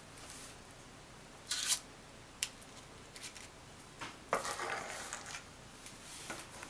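A metal spoon scraping and clicking against a stainless steel mixing bowl while scooping thick muffin batter: a few short scrapes and clicks, the longest about four seconds in.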